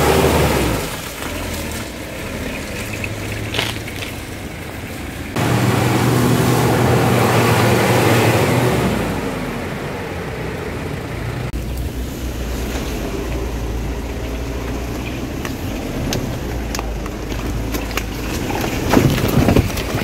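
Ford Everest 4x4's diesel engine running while driving off-road, with knocks and rattles over rough ground. The engine note jumps louder about five seconds in and eases again a few seconds later.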